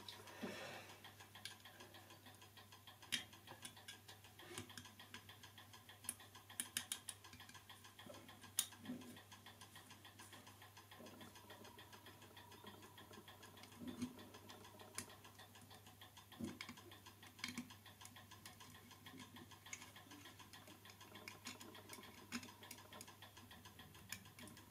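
Faint, irregular small clicks and light taps from the clock movement and small tools being handled on the bench. The clock is not ticking: its platform escapement is not yet fitted.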